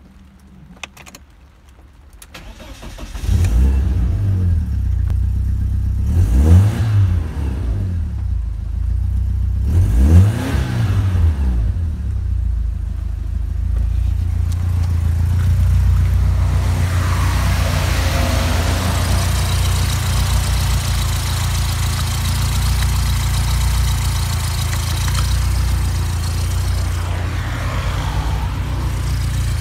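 BMW M40B18 1.8-litre inline-four engine starting about three seconds in. It is revved up and back down twice, then settles into a steady idle at about 1,000 rpm.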